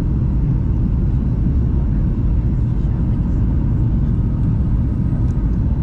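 Steady low rumble of a Boeing 737's cabin noise, jet engines and rushing air, heard inside the cabin from a window seat.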